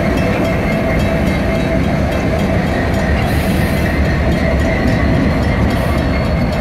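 Steady loud rumble of a running vehicle, with a faint steady whine.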